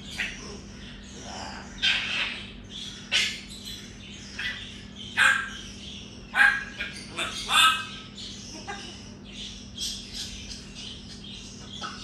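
African grey parrot calling in a string of short squawks, chirps and whistles, with the loudest calls between about two and eight seconds in.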